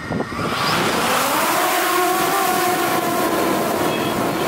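FPV quadcopter's brushless motors and propellers whining under throttle. About half a second in, a tone glides up as the sound grows louder and a rushing noise sets in, then it holds as several steady, lower-pitched tones.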